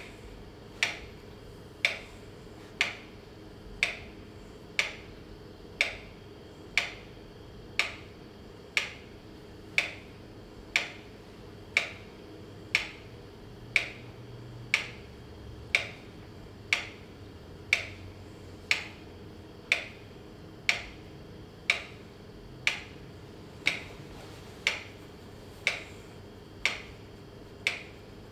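Sharp clicks at a very even pace, about one a second, like a clock or metronome ticking, over a steady low hum.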